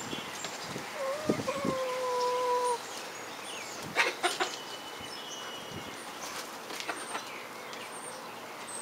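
A juvenile rooster attempting a crow: a single held, slightly falling note lasting nearly two seconds, starting about a second in. A short, sharp, louder noise follows about four seconds in, and faint high chirps sound here and there.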